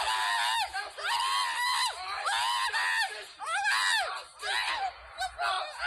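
A man screaming in a run of high, wavering cries, one after another with short breaks between them.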